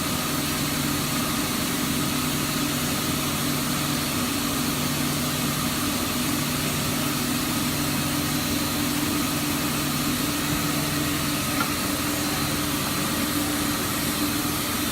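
Mazak Integrex 300-IVST CNC turning center running under power: a steady machine hum over an even hiss. A low tone in the hum cuts in and out every second or two.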